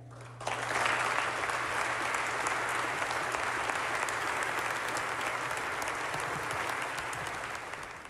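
A large audience applauding in a legislative chamber, starting about half a second in, holding steady, then fading near the end.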